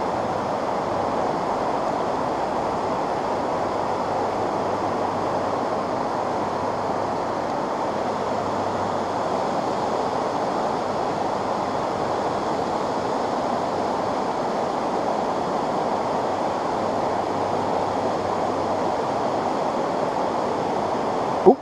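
Steady rush of a fast-flowing brook running over a rocky bed.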